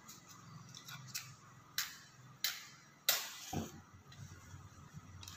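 A Bunsen burner being lit: four sharp clicks about two-thirds of a second apart, the last followed by a brief hiss, then a soft low knock.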